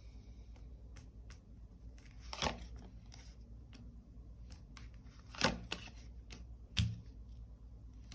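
Tarot cards being handled and laid down on a table: three short, sharp card snaps and slaps, the last with a soft thump, among faint clicks and rustles.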